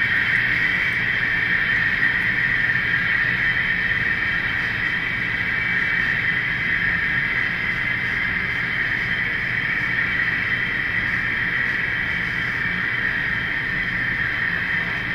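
Model diesel locomotives running along the layout, giving a steady whine with a low hum beneath and no change in pace.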